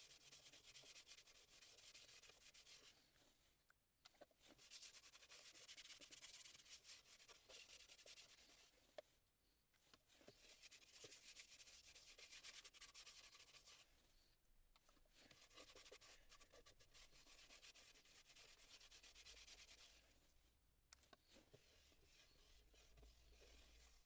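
Faint rubbing on the wood of a red oak bowl being worked on a lathe, in passes of a few seconds each with short pauses between.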